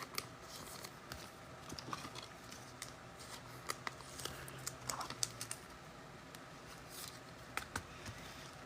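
Trading cards and packs being handled: light, irregular clicks and soft rustles as cards are slid and flipped.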